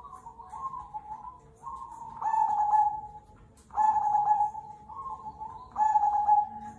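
Zebra dove (perkutut) singing its cooing song, three loud drawn-out coos spaced about one and a half to two seconds apart, with softer coos between them.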